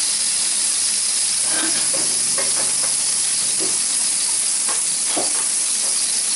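Sizzling on a Severin electric grill, with tomato slices on the rack and bacon fat in the tray below: a steady hiss with a few faint crackles.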